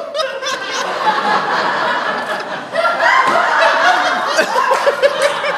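Audience laughing, a dense mix of many voices, swelling again about three seconds in.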